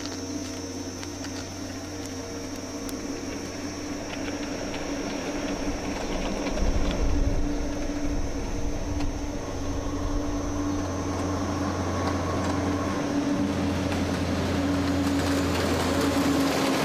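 Heavy truck engine approaching on a dirt road, a steady drone with a low rumble that grows louder as the truck nears.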